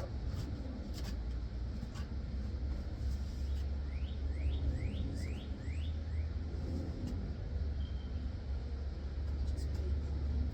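Wood chisel cutting out the cracked hinge-side wood of a door: scattered faint taps over a steady low rumble. Partway through, a bird chirps a quick run of rising notes.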